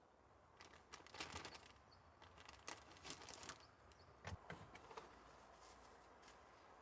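Faint, irregular rustling and light clicks, as of small objects or material being handled.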